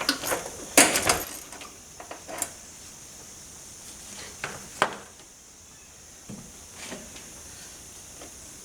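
Scattered metallic clinks and knocks of hand tools on the battery hold-down bracket and its hardware as it is taken off. A cluster comes in the first couple of seconds, then a few single knocks with quiet stretches between.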